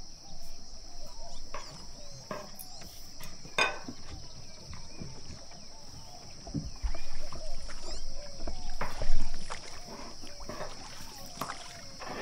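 A long thin wooden rolling pin (oklava) rolling a thin sheet of yufka dough back and forth on a wooden board, with rubbing and scattered knocks of the pin on the board and a louder bump about nine seconds in. Small chirps and a steady high hiss sound in the background.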